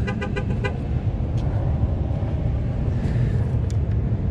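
Wind buffeting the microphone outdoors, a steady low rumble, with a short run of rapid, even clicks at the very start.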